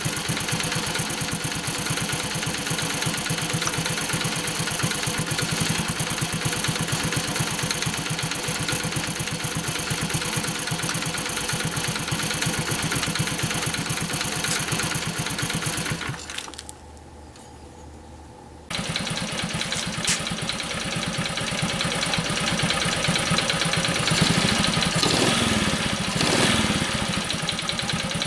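Honda Super Cub 50's air-cooled single-cylinder four-stroke engine idling, the engine being checked for tappet ticking around its valve clearance adjustment. The sound drops out for about two seconds past the middle, then the engine runs again, with the revs rising briefly a couple of times near the end.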